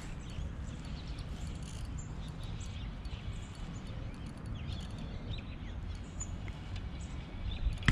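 Steady low wind rumble on the microphone, with faint bird chirps over it and a single sharp knock right at the end.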